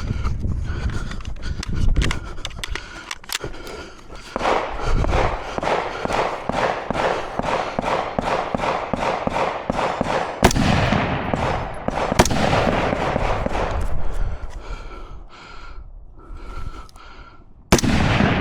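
Rapid gunfire in quick strings, many shots close together, with two louder cracks in the middle and a short lull near the end.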